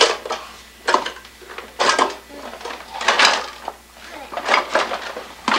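Wooden kitchen drawers and the things inside them knocking and clattering in about six short bursts as a toddler pulls at a drawer handle and climbs into an open bottom drawer.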